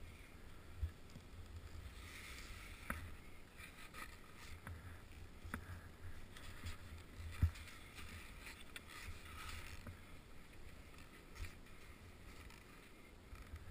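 Skis swishing through soft powder snow in a run of turns, a soft hiss that swells and fades, with scattered dull thumps and knocks; the sharpest comes about seven and a half seconds in.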